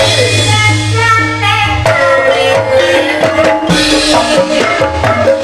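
Banyumasan calung ensemble playing live: a bamboo xylophone melody over kendang hand-drum strokes with a steady beat.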